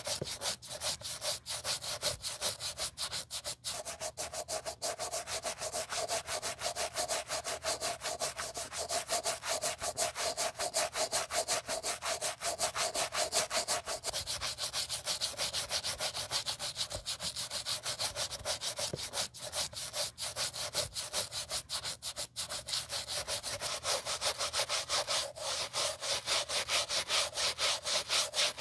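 Bristle brush scrubbing a white leather sneaker in quick, continuous back-and-forth strokes, a dry rapid scratching.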